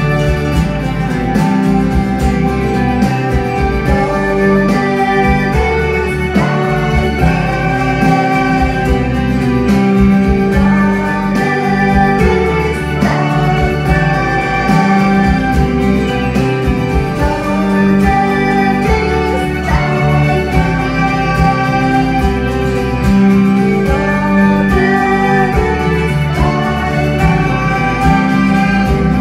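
Live music: a woman singing into a microphone over her strummed acoustic guitar.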